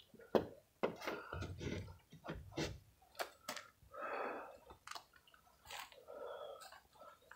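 Irregular light clicks, crunches and rustles of someone shifting about and stepping on dry grass and debris, with the phone camera being handled.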